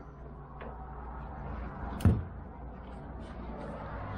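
A single sharp knock about two seconds in, like a tool or part set down during work on the car, over a low steady hum and a few faint clicks.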